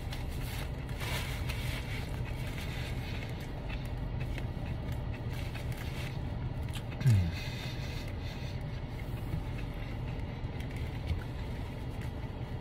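Steady low hum of a car idling, heard inside the closed cabin. About seven seconds in, a man makes one brief falling vocal 'mm' while eating.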